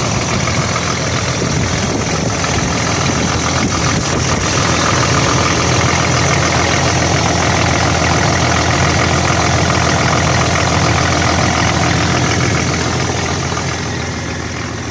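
Nissan SD33-T six-cylinder turbo diesel engine idling with a steady diesel clatter, heard close up in the open engine bay. It gets a little quieter near the end.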